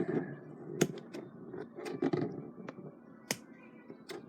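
Small scissors snipping through a soft foam squishy toy: a few sharp snips of the blades closing, with soft rustling from the foam being handled between them.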